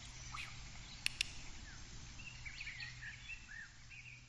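Faint chirps and short whistled calls, like small birds, scattered through a quiet background with a steady low hum. Two sharp clicks come a little over a second in.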